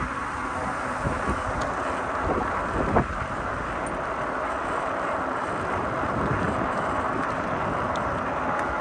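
Wind buffeting the microphone over the steady rolling noise of a Cyrusher XF800 fat-tyre e-bike on the move, with a single short knock about three seconds in.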